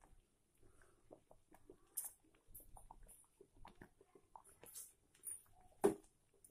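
Thick wheat-flour payasam bubbling in an aluminium pot: faint, irregular wet plops and pops as bubbles burst through the simmering mixture. There is a sharper click near the end.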